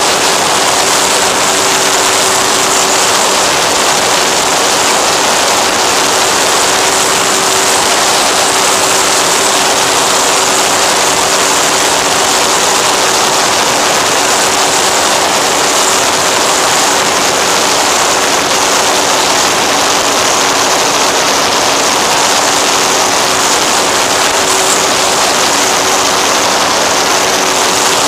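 Onboard sound of an FX-79 flying-wing model plane in cruise: a steady rush of air and propeller noise with a constant motor hum, picked up by the plane's own camera.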